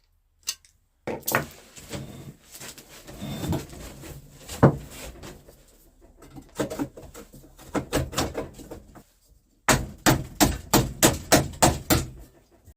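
Sheet-metal stovepipe being worked into its fitting: irregular metallic knocks and rattles with one sharp knock about five seconds in, then a quick even run of taps, about four a second, for the last three seconds.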